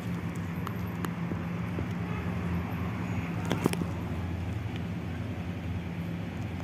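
A steady low mechanical hum, like a motor or engine running, with a few light clicks; the sharpest click comes about three and a half seconds in.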